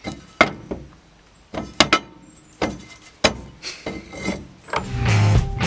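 Rusty steel angle iron being set into a chain pipe vise: a series of sharp metal knocks and clanks with some scraping as the bar is shifted against the vise. Rock music comes in near the end.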